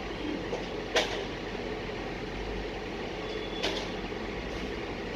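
Steady low running of a truck engine working a self-loading platform during a shipping-container unload, with two sharp metal clanks, the louder about a second in and another about two and a half seconds later.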